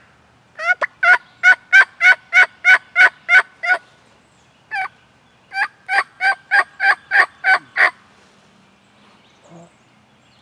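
Turkey yelping: a run of about a dozen sharp yelps at about four a second, a single yelp, then a second run of about ten, ending a couple of seconds before the end.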